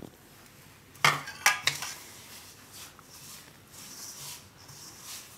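Three sharp knocks about a second in as a plastic bowl of curd is knocked against a stainless steel mixing bowl, followed by the soft rustle of hands working the curd into crumbly flour in the steel bowl.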